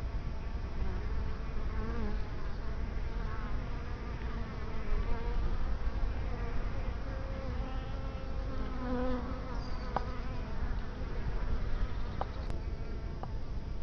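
Honey bees, native black bees, flying around the hive, several buzzes rising and falling in pitch as they pass, with a few sharp clicks in the second half.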